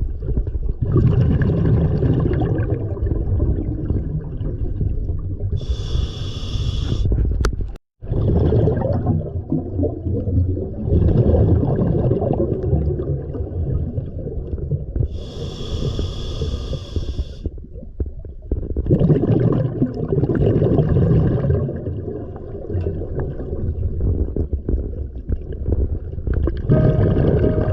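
Scuba diver breathing underwater on an open-circuit regulator: a short hissing inhale through the regulator about every ten seconds, between long rumbling, bubbling exhales. Music comes in near the end.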